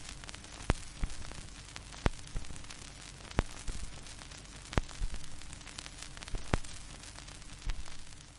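Old-recording surface noise: a steady hiss and crackle with a sharp pop about every second and a half, over a faint steady hum.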